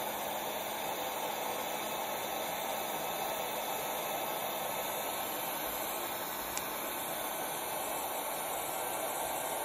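ATEN ST862D hot air rework station's handpiece fan blowing a steady rush of air while the station heats, running normally again after its E13 heater fault was fixed.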